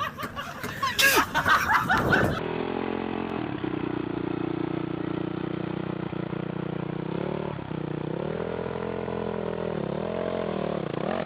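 A motorcycle engine running at a steady speed, its pitch dipping and rising again a couple of times near the end. Before it, for about the first two seconds, there is a clatter of knocks mixed with voices.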